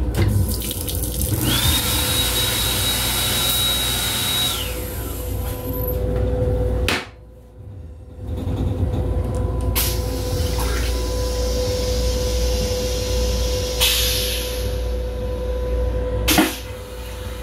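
Restroom fixtures on a Metro-North M7 railcar. The sink faucet runs for about three seconds with a steady high whine, and later the toilet flushes, all over the car's steady electrical hum.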